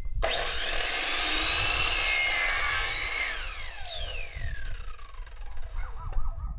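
Ridgid miter saw's motor switched on: it whines up to full speed within a fraction of a second, runs steadily for about three seconds, then is released and winds down with a long falling whine.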